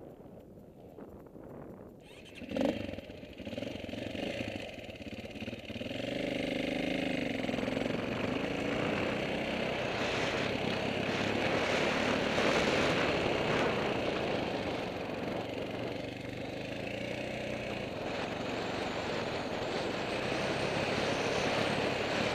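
Dirt bike engine starting up about two and a half seconds in, revving with a rising and falling pitch, then running steadily under way.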